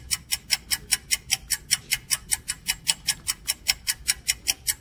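Rapid, even ticking, about five sharp clicks a second, like a clock tick.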